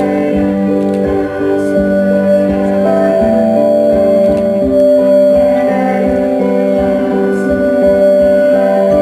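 Instrumental background music: held, changing notes over a steady beat.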